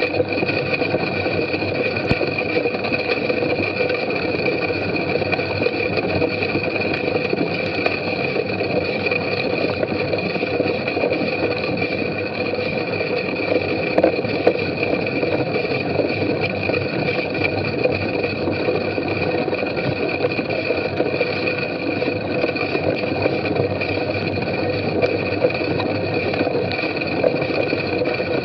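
Steady rattling and scraping noise of a bicycle ridden over a muddy grass course, picked up by a camera mounted on the bike or rider, with a constant hum made of two held tones over it and a few small knocks about halfway.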